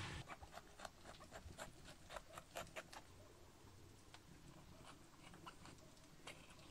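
Faint, irregular crisp clicks and snaps, thickest in the first three seconds and sparser later: blanched cabbage leaves being peeled off the head and trimmed with a knife.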